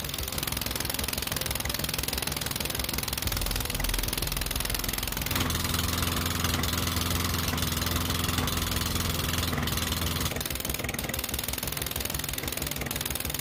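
Briggs & Stratton 300E single-cylinder lawn mower engine running steadily, being run up to operating temperature on clean oil over heavy sludge and varnish. It gets louder for about five seconds in the middle.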